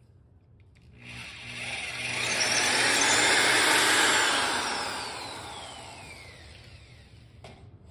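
Corded 1/2-inch electric drill running with a masonry bit, drilling a hole in concrete. It starts about a second in, builds to full speed, then winds down with a falling whine.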